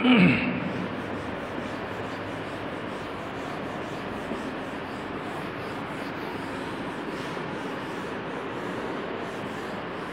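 Chalkboard duster rubbing across a blackboard in repeated strokes, wiping off chalk writing: a steady scrubbing hiss. A brief louder sound with a falling pitch opens it.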